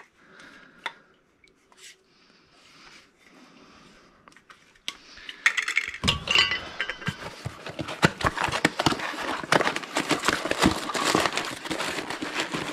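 Hands handling metal tools and small parts, a few faint knocks and then, from about five seconds in, a dense run of clinking and rattling.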